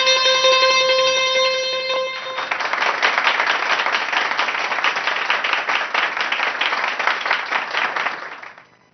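The last ringing notes of a Persian plucked long-necked lute, then about two seconds in an audience breaks into applause, which fades away near the end.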